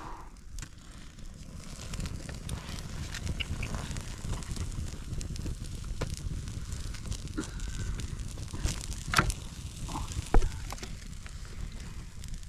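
Wind rumbling on the microphone, with irregular crackles and taps throughout and a couple of louder knocks near the end.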